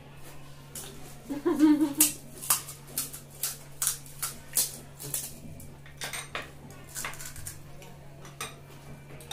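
Golgappa being prepared at the table: a spoon clinking against a steel bowl of pani and the crisp puri shells being cracked open, heard as a quick, irregular run of sharp taps and clicks.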